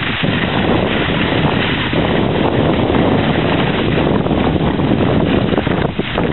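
Wind buffeting the microphone of a camera carried on a moving skier, a loud steady rush with a deep rumble, mixed with the hiss of skis sliding over packed snow. The rush dips briefly near the end.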